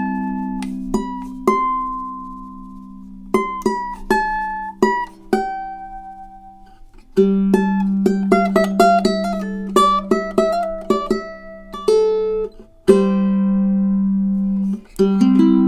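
Tenor ukulele with a figured Koa body and redwood top, strung low-G, played improvised: picked single notes ringing over strummed chords, with a short lull about halfway through and a held chord near the end.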